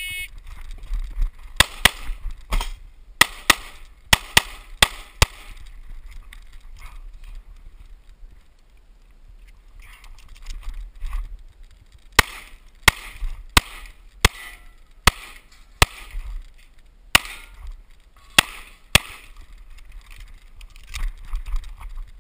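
Pistol shots fired in quick strings: about nine rapid shots, a pause of several seconds, then about ten more. A short electronic beep, typical of a shot timer's start signal, sounds at the very beginning.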